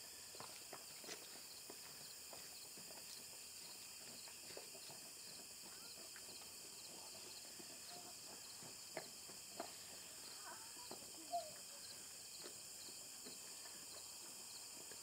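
Faint outdoor ambience: a steady high drone of insects, with scattered light clicks and taps and a few short chirps, the sharpest about eleven seconds in.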